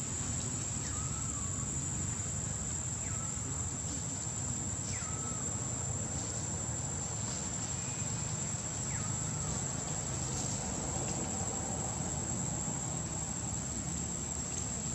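Insects buzzing in one continuous, steady high-pitched whine, with a few faint short chirps every couple of seconds.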